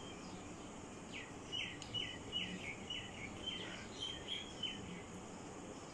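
A run of about ten short, high chirps, two or three a second, each dipping at its end, over a steady faint hiss.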